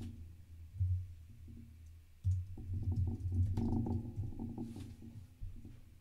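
Typing on a computer keyboard: a short burst of keystrokes about a second in, then a longer run of keystrokes from about two seconds in until past four seconds.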